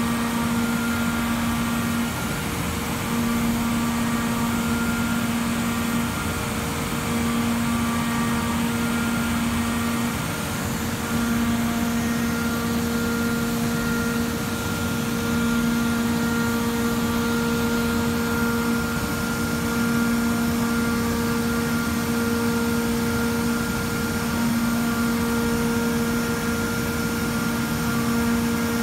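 CNC milling machine cutting an aluminium plate with a small end mill: a steady machine whine over the noise of the cut, the tone dropping out briefly every four seconds or so.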